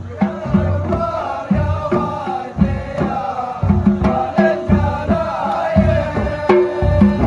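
Arabic song: a singing voice carries a wavering melody over a steady, regular frame-drum beat.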